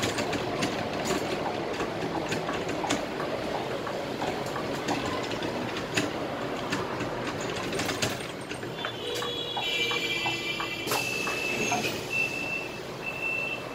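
Cab interior of a Scania K320IA bus on the move: steady engine and road noise with frequent rattles and clicks. From about nine seconds in, a high electronic tone comes in and breaks into short repeated beeps near the end.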